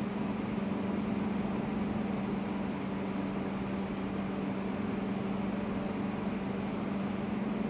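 Steady electrical hum of a Renfe Class 120 (CAF) electric train standing at the platform, with one constant low tone over an even hiss.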